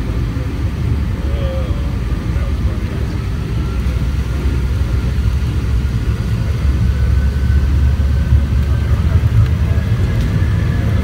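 Cabin noise of a McDonnell Douglas MD-90 heard inside the cabin over the wing as it taxis onto the runway: a steady low rumble from its rear-mounted IAE V2500 engines, with a faint whine that rises slowly and a little more loudness in the second half.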